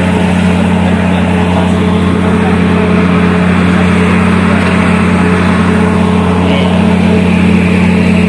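Marine diesel engine running steadily at constant speed, a loud, even low drone.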